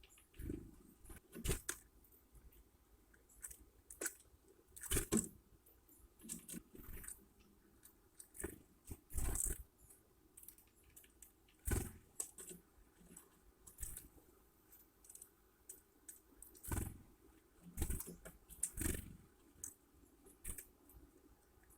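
Great spotted woodpecker pecking at bird-feeder food: irregular sharp taps and crunching knocks, in uneven clusters a second or two apart.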